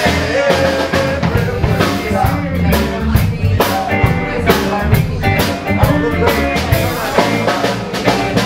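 Live blues band playing: electric guitar, electric bass and drum kit keeping a steady beat, with a held lead note near the start.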